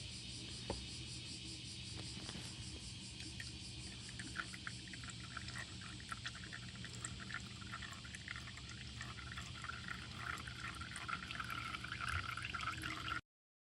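Gear oil pouring and trickling, for the transmission of a Suzuki Alto Works HA36S, getting louder from about four seconds in. It cuts off suddenly near the end.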